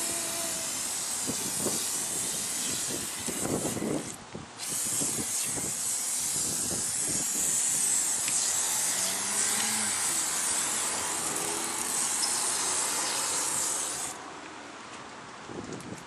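Aerosol can of tire-whitening spray hissing in a long, steady spray. It breaks off for a moment about four seconds in, then sprays again until shortly before the end.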